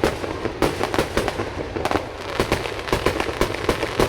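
Fireworks going off in a rapid, uneven volley: many sharp bangs, several in quick clusters, with a crackling haze between them.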